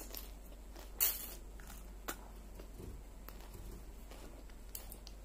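Crisp raw salad being chewed and a metal fork picking at it on a plate: scattered crunches and small clicks, the loudest about a second in and another near two seconds.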